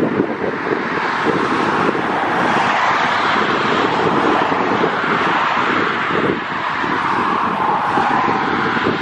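Eurowings Airbus A320's twin jet engines at takeoff thrust: a loud, steady rushing noise as the airliner rolls, rotates and climbs out, with wind buffeting the microphone.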